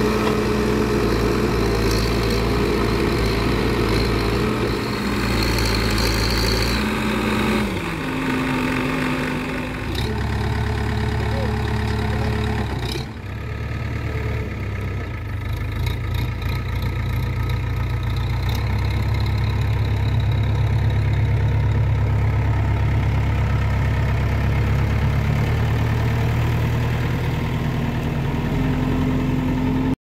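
Diesel engine of an L&T Case backhoe loader running steadily under work, its speed stepping up and down several times.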